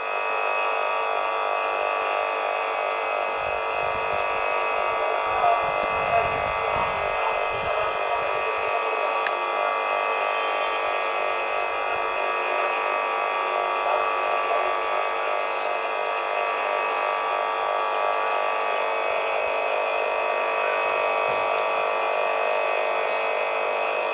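Steady, dense chorus of calling animals, many unbroken tones held together without change, with short high chirps now and then.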